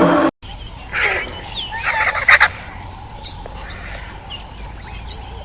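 Domestic poultry calling: loud bursts of calls about a second in and again around two seconds in, followed by fainter short chirps.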